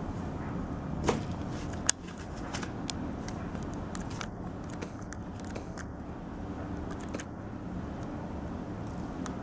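Bengal cat pawing and scratching at a cardboard puzzle box with holes in its lid: a run of light clicks and taps, the two sharpest about a second and two seconds in, over a steady low hum.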